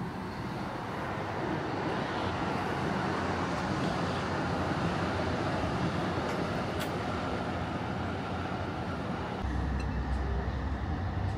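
Steady vehicle noise, with a deeper low rumble joining about nine and a half seconds in.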